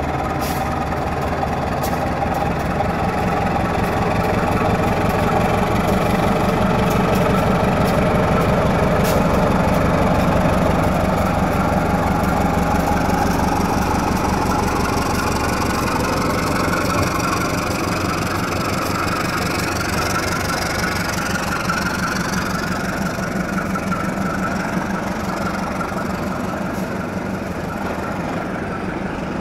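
Diesel-electric locomotive (CC203) running as it hauls a rake of tank wagons past on the next track, mixed with the rumble of trains rolling. The engine drone swells to its loudest about a third of the way in, then slowly eases off.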